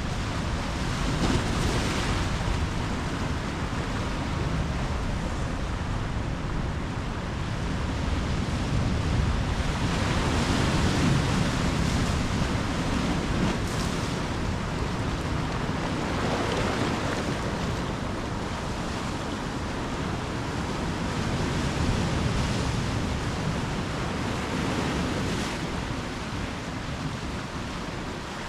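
Ocean surf: waves washing in and breaking over a steady rush of water, with a stronger surge every several seconds. There is some wind rumble on the microphone.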